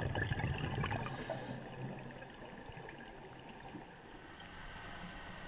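Underwater water noise picked up by a dive camera: a low gurgling rush, loudest in the first two seconds, then fading to a faint hiss.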